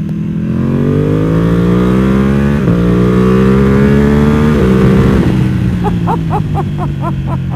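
Ducati Panigale V2's L-twin engine through a full titanium Akrapovič exhaust, accelerating hard: the engine note climbs, drops at an upshift about two and a half seconds in, climbs again, and shifts up once more around four and a half seconds before easing off.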